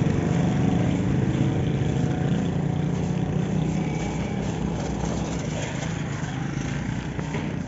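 Small motorcycle engine running and slowly fading as the bike rides away over the level crossing.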